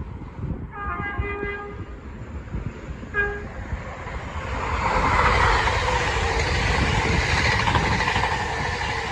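Class 801 Azuma electric train sounding its horn: one blast about a second long, then a short toot about two seconds later. The train then rushes past, its noise swelling loud and staying up.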